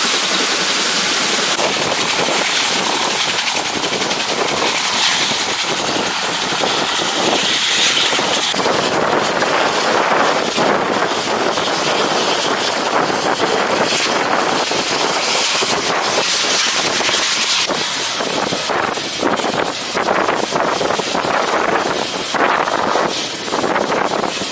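Mi-17 transport helicopter running, its turbines and rotor making a loud, steady rushing noise.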